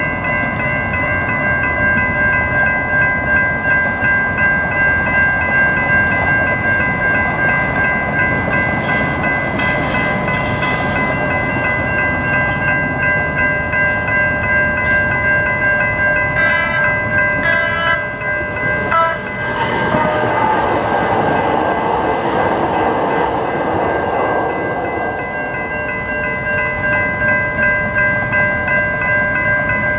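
Several electronic railroad crossing bells, a General Signals Type 3 and Siemens units, ringing together in a steady, even pulse, the sign that the crossing is activated. About two-thirds of the way through, a few short higher tones and then a rush of passing noise join the bells for several seconds.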